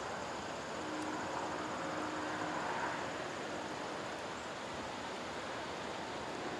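Steady, even rushing noise with a few faint held tones beneath it.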